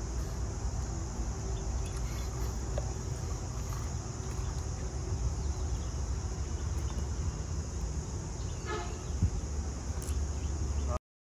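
Steady high-pitched insect chorus over a low outdoor rumble, with a brief rattle and a single sharp click late on. The sound cuts off suddenly near the end.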